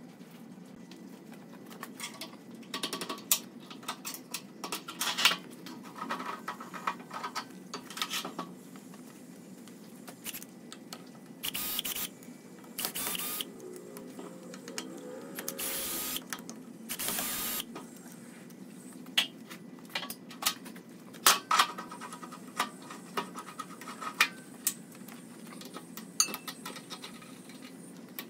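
Clicks, knocks and clatter of tools and a wooden bowl being handled at a wood lathe, with four short bursts of a cordless drill driving screws, which fix a faceplate to the bowl's base, around the middle. A steady low hum runs underneath.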